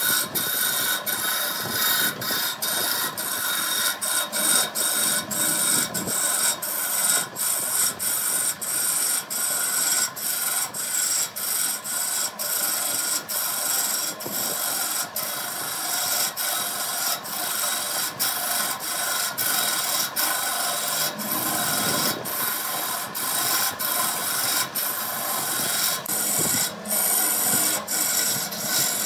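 A power tool working wood: a continuous, even noise with many short clicks all through.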